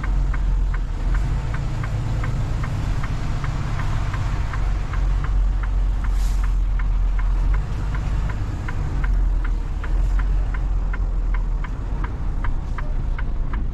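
Semi-truck engine running steadily while the turn signal ticks about three times a second. A short hiss comes about six seconds in.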